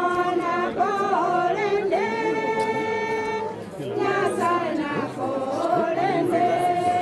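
A group of voices singing together without accompaniment, holding long notes in slow phrases, with a brief break a little past halfway.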